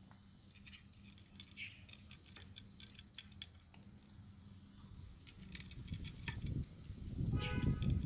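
A cat crunching dry kibble from a plastic plate, with sharp irregular clicks and crunches. From about two-thirds of the way in, a low rumbling noise swells and becomes the loudest sound, and there is a brief higher-pitched sound near the end.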